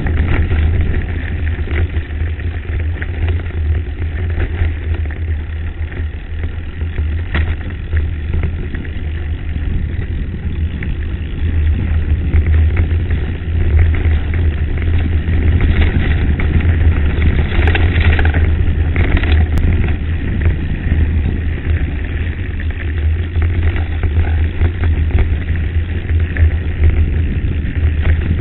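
Wind buffeting a mountain bike's action-camera microphone at descent speed, a steady low rumble, with tyres crunching over loose gravel and the bike rattling on stones in frequent short clicks.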